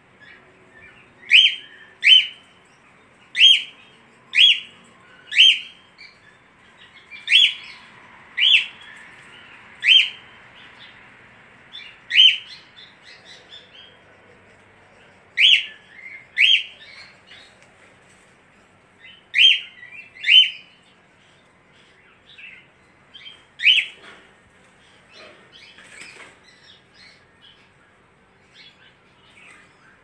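Caged budgerigar giving loud, short chirping calls that rise in pitch, often in pairs about a second apart and repeated every few seconds, then fainter, scattered chirps near the end.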